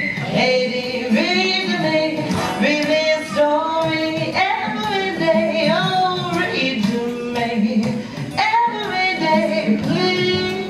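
A woman singing a children's sing-along song to acoustic guitar.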